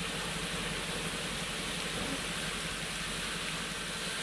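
Pressurized water jets from an undercarriage washer spraying hard against a brush truck's underside and wheels, a steady rushing hiss, with the truck's engine running low underneath as it creeps through.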